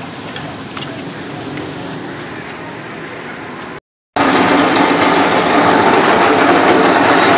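Sugarcane juice press running loudly after a cut about four seconds in, its motor and rollers grinding steadily as crushed cane is fed through. Before the cut, a few light clinks of a spoon and fork on a plate over a murmur of room noise.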